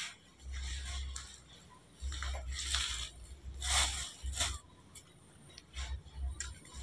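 Faint rustling and handling noises, a few short swishes, the clearest about four seconds in, over a low rumble that comes and goes.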